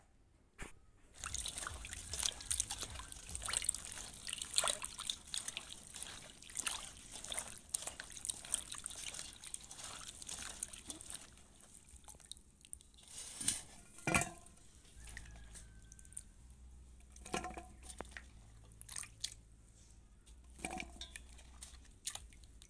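Cauliflower florets being washed by hand in a steel bowl of water: splashing, sloshing and dripping. It starts about a second in, is busy and continuous for the first half, then breaks into separate splashes.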